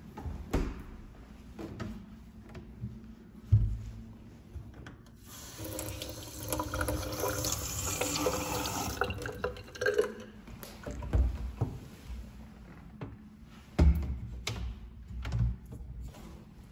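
Kitchen faucet running into a stainless steel sink, a steady splashing hiss that starts about five seconds in and is shut off about five seconds later, with a hand held under the stream. Several sharp knocks come before and after it, the loudest just before the water starts and again near the end.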